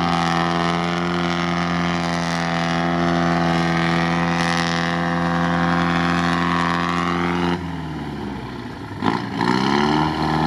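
A GAZ-63 truck's engine pulling steadily under load through a flooded bog, holding one even pitch. About three-quarters of the way in the sound breaks off suddenly. After a sharp knock the engine comes back revving up and down.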